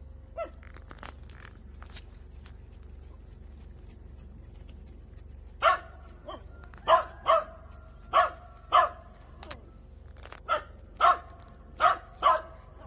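A dog barking off-picture: a run of about ten short, loud barks, mostly in pairs, starting about halfway through.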